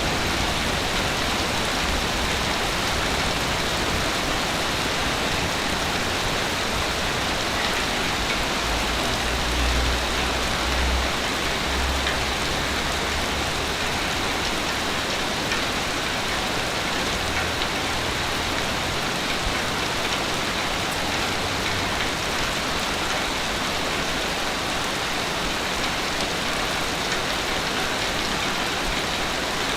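Ocean waves washing on a beach: a steady rushing hiss of surf with a deeper rumble swelling briefly about nine seconds in and again near the middle.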